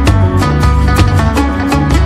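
Background music with a quick, steady beat and a plucked-string melody.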